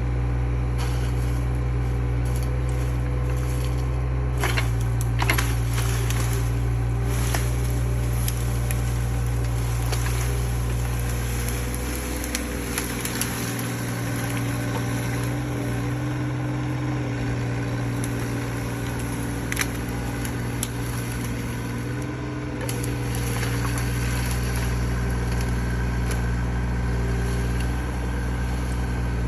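Mini excavator engine running steadily under work. Its note shifts for about ten seconds in the middle, and scattered sharp cracks come through, mostly in the first third.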